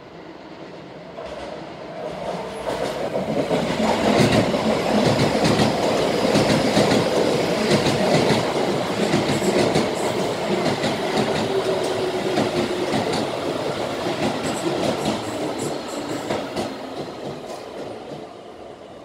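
Keio electric commuter train running along the platform, its wheels clattering over the rail joints. It grows loud about four seconds in and fades toward the end.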